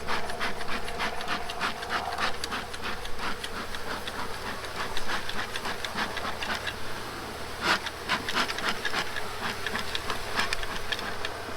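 Honeybees buzzing steadily around an opened hive, with frequent short ticks and knocks throughout.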